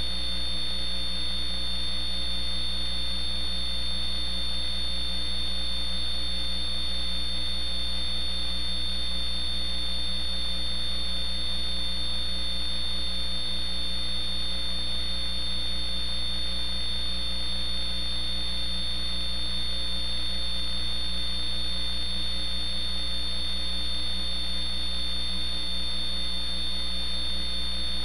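Steady electrical mains hum in the audio feed, with a thin high-pitched whine over it and no change throughout.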